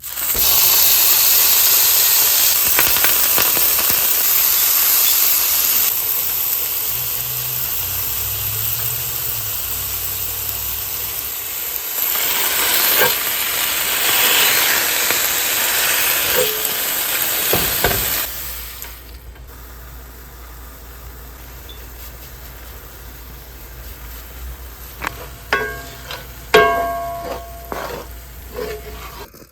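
Ground beef sizzling loudly as it fries in a pan, with some stirring. The sizzle cuts off suddenly about two-thirds of the way through, and a few ringing clinks of a utensil against a pan or dish follow near the end.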